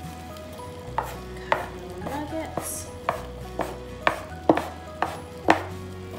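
A blade chopping a rope of fresh pasta dough into small pieces on a board, about two sharp knocks a second.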